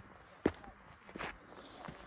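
Footsteps of a hiker walking up a trail: a few separate steps, the loudest about half a second in.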